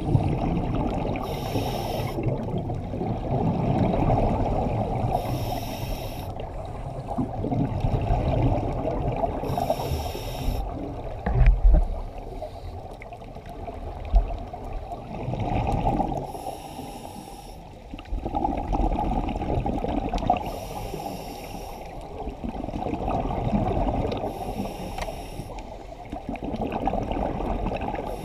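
Scuba diver breathing underwater through a regulator: a short hissing inhale about every four seconds, with exhaled bubbles rumbling and gurgling between breaths. Two short knocks near the middle, the first the loudest thing heard.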